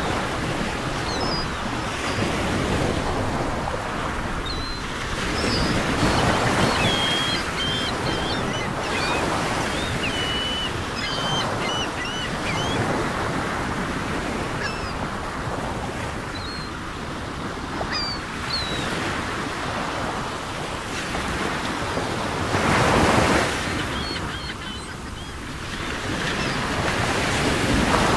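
Ocean surf washing in, swelling and falling back every several seconds, with scattered high bird chirps through the first half.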